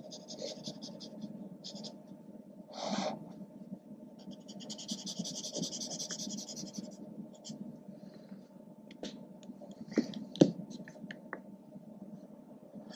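Felt-tip marker scratching across kraft paper in short shading strokes, with one longer stroke in the middle. Two sharp taps come about ten seconds in.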